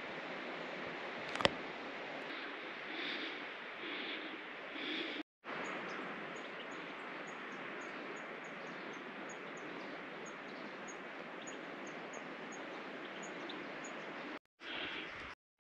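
Outdoor ambience on a pine-forested slope: a steady rushing hiss with a sharp click about a second and a half in. From about 5 s to 14 s a faint high chirp repeats a couple of times a second. The sound cuts out abruptly twice.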